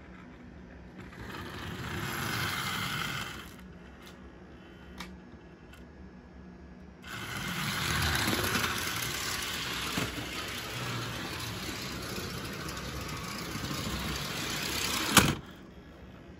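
Band-driven toy model train diesel locomotive running on the track: its small electric motor whirs and the wheels rattle on the rails, in two runs with a quieter gap between. About a second before the end a single sharp knock cuts the whir off, as the locomotive tips off the track.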